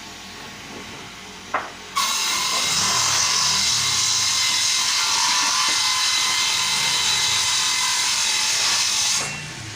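A woodworking machine cutting a length of timber: it starts abruptly about two seconds in, runs steadily with a high whine for about seven seconds, and stops near the end.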